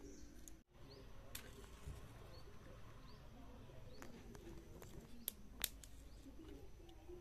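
Faint clicks and snaps of dry twigs at a small wood fire being laid and lit in a brick stove, the two sharpest about five and a half seconds in, over a quiet rural background.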